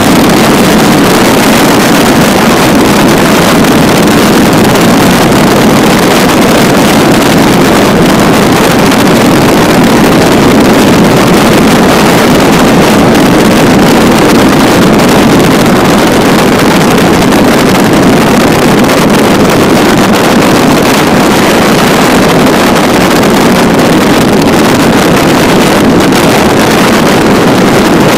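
Aviat Husky A-1B's Lycoming flat-four engine and propeller running steadily in flight, a loud, even drone mixed with wind rushing over the microphone.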